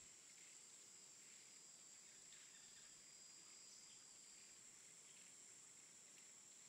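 Faint jungle ambience: insects droning steadily at a high pitch, with short, faint calls scattered every second or so.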